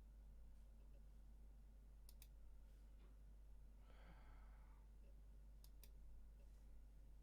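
Near silence: a steady low electrical hum, with two faint pairs of clicks and a faint breath-like rush about four seconds in.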